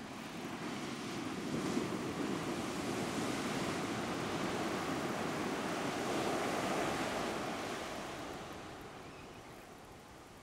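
Ocean surf breaking and washing up the beach, swelling about a second in and fading away near the end.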